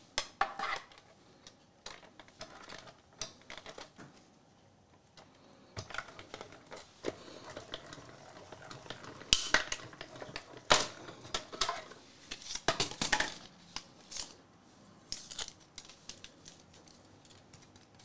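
A small hand-cranked die-cutting machine in use: plastic cutting plates are slid in and cranked through, then pulled out. There is rustling and a run of sharp plastic clicks and clatter, loudest about nine and eleven seconds in.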